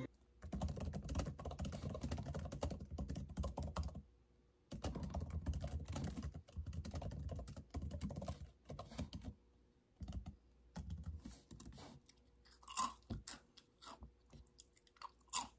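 Quick taps on a MacBook Air laptop keyboard in runs of a few seconds, mixed with chewing. Near the end come a few sharper crackles as a hand goes into a crisp plastic snack bag.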